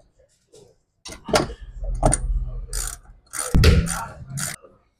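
Hand tools and steel parts working on a truck's front suspension: a string of irregular metallic clanks and clatters, the loudest and longest about three and a half seconds in.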